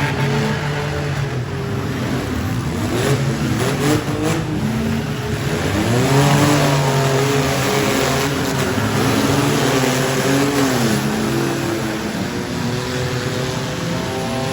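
Several six-cylinder demolition-derby car engines revving together, their pitches repeatedly rising and falling as the cars accelerate and back off.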